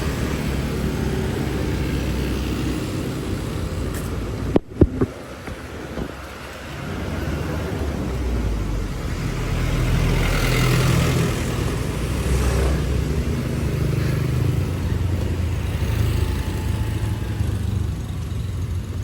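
Road traffic with a motorbike engine running. About five seconds in it cuts out abruptly with a couple of sharp knocks, then the engine sound builds up again.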